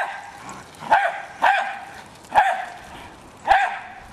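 Jack Russell terrier barking at a remote-controlled toy car: about five short, sharp single barks spaced roughly a second apart.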